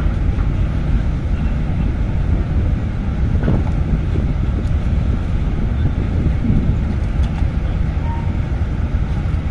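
Wind buffeting the microphone over a steady low rumble, with a few faint clicks.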